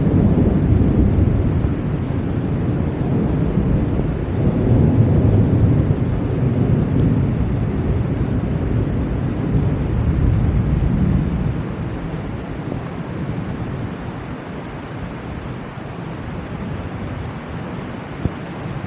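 Heavy rain pouring steadily, with a long low rumble of thunder that dies away about two-thirds of the way through.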